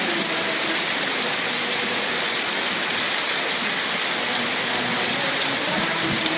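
Steady heavy rain pouring down.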